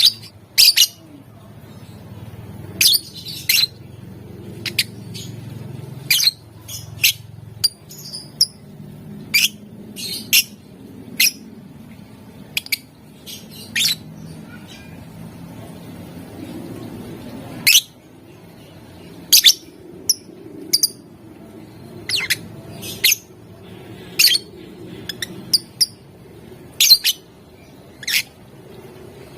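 Lovebird giving short, shrill, sharp chirps one at a time at irregular intervals, sometimes two or three in quick succession, over a low steady background hum.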